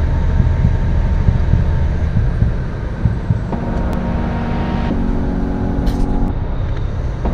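Steady low rumble of road and vehicle noise inside a moving vehicle at highway speed. About halfway through, music with held chords comes in, the chords changing every second or so.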